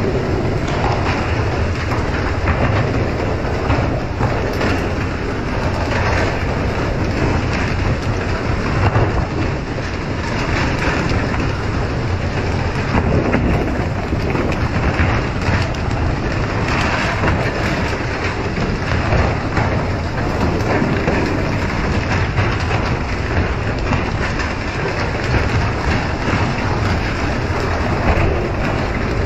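Steady, loud rushing of water spray and waves along a fishing boat's hull while it is under way, over a low rumble.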